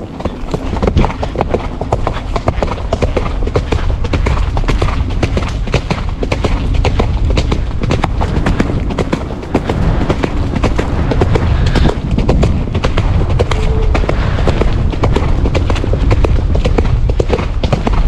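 Ridden horse's hooves striking a soft, leaf-covered earth track at a fast gait, a quick continuous run of thuds that grows louder about a second in.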